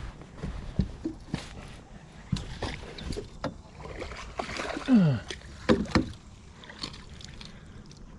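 Scattered knocks, clicks and light water sounds from tackle being handled on a small fishing boat, with a short falling pitched sound about five seconds in; it quiets over the last couple of seconds.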